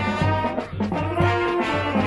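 Marching band playing: brass section holding loud sustained chords over a steady drum beat.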